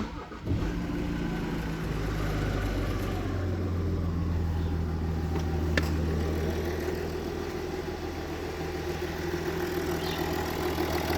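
Jaguar XF S's 3.0-litre twin-turbo V6 diesel engine starting, catching about half a second in, then idling steadily. It starts just after an oil change, with some ticking at first until it builds oil pressure.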